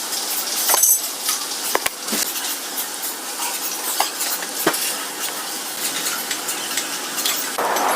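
A steady sizzling hiss with scattered small clicks and taps as the broken transformer is desoldered from the plasma cutter's circuit board.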